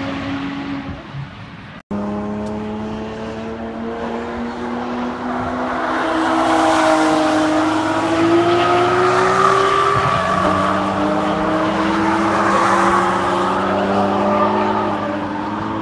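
High-performance car engine accelerating on a race track, its pitch rising steadily, dropping at a gear change about ten and a half seconds in, then climbing again. A sudden cut near two seconds in breaks off an earlier car's fading engine.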